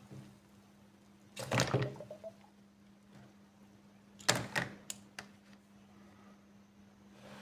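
Two short bursts of knocking and clatter, as of metal parts being handled and set down, the second a quick run of sharp clicks. A steady low hum runs under it.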